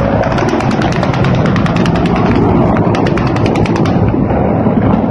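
Automatic gunfire: two long bursts of rapid, even shots at about ten a second, over the steady low rumble of Mi-8 helicopters flying low.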